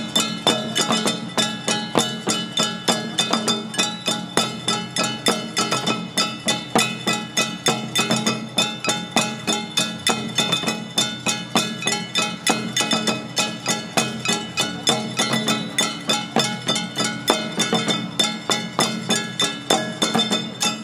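Jangara nenbutsu dance music: hand-held bronze kane gongs and drums struck in a fast, even rhythm, the gongs ringing on between strokes.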